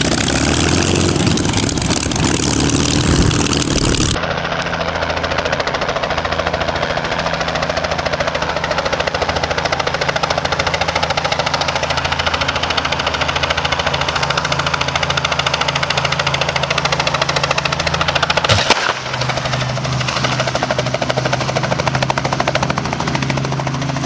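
A vintage RAF fighter's piston engine running with its propeller turning, then after a cut a small piston helicopter's rotor beating steadily as it hovers low and settles onto the grass. A sharp click and a shift in the helicopter's tone come about three-quarters of the way through.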